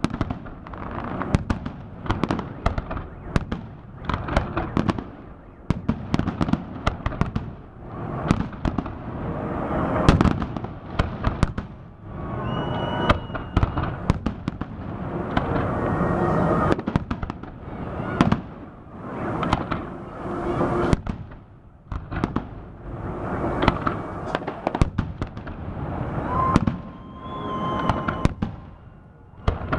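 Fireworks salute: a rapid, continuous barrage of bangs and crackling bursts, with the rumble of shell bursts swelling between them.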